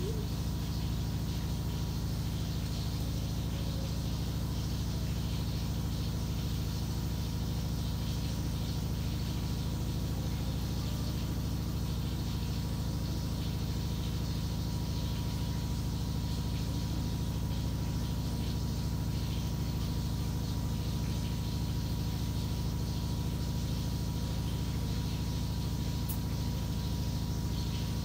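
Steady low machine hum that never changes, with a faint constant high tone above it.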